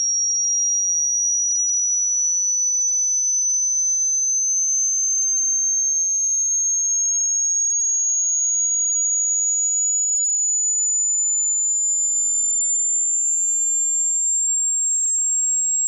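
A single pure, high-pitched electronic sine tone at constant loudness, slowly and steadily rising in pitch: a test-tone frequency sweep.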